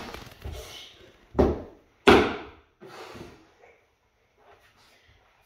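Two heavy thumps about two-thirds of a second apart, the second the loudest, then a few fainter knocks: a child tumbling on a wooden floor.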